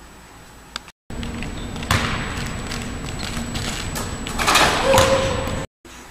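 Basketball dunk attempt in a gym: a sharp thud about two seconds in, then a louder slam at the rim around five seconds in, over a steady hum from the hall.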